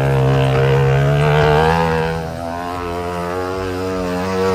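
Motorcycle engine running at steady revs as it circles the wall of a well of death, its note wavering as it goes round. The engine note shifts and the sound drops a little about two seconds in.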